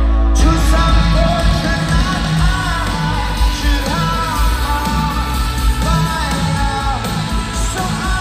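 Live rock band playing loud, with heavy bass and a lead vocal melody over it. After a brief break right at the start, the full band comes back in.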